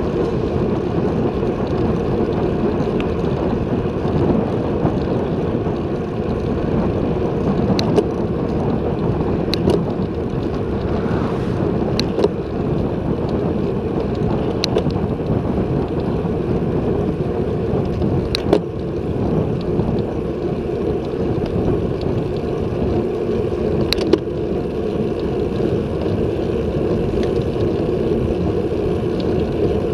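Wind rushing over an action camera's microphone on a moving road bicycle, with tyre noise on asphalt, steady throughout. A handful of short sharp clicks or knocks stand out, scattered through.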